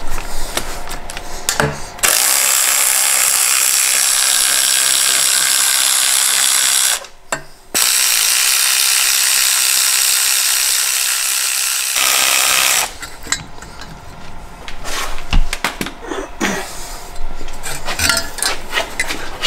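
Air ratchet running in two long runs of about five seconds each with a steady loud hiss, undoing a fixing to take off an intercooler pipe. After them come scattered light clicks and clinks of tools and metal parts.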